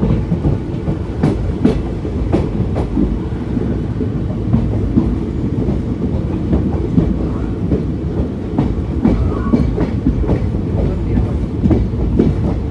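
Passenger train running, heard from aboard a coach: a steady low rumble with irregular clicks of the wheels over the rail joints.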